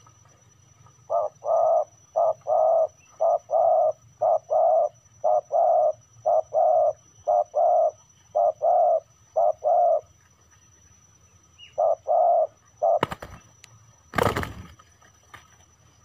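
Spotted dove cooing its call over and over, each phrase a short note then a longer one, about once a second. After a pause, two sudden loud bursts of noise follow near the end as the wild dove and the decoy dove scuffle.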